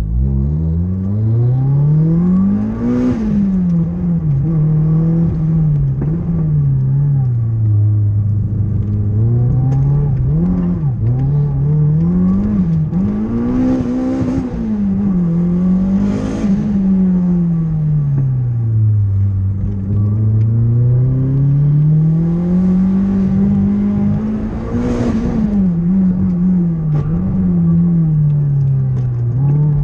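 Turbocharged Honda D16 four-cylinder engine of a Civic, heard from inside the cabin under hard driving, its revs repeatedly climbing and falling. A short hissing burst comes at several of the rev peaks, about four times.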